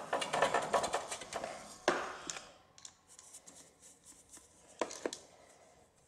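Hands working a rubber fuel hose onto a metal fuel line and fitting its hose clamp: a flurry of small clicks and rubbing for the first two seconds or so, then a couple of sharp ticks near the end.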